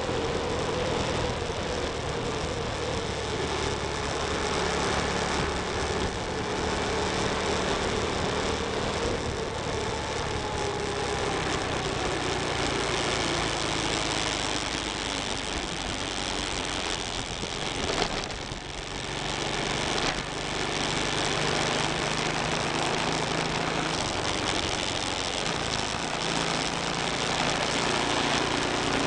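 Motorcycle engine running while riding at road speed, under steady wind rush on the microphone. The engine note slides lower about ten seconds in.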